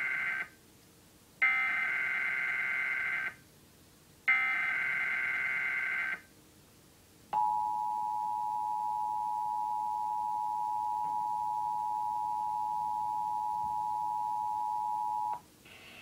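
Emergency Alert System activation through a TV's speaker: the end of one burst of SAME digital header data and two more full bursts, each about two seconds of buzzy warbling tones. About a second later the two-tone EAS attention signal begins and holds steady for about eight seconds, cutting off shortly before the end. Together they announce an EAS alert, here a test tornado watch.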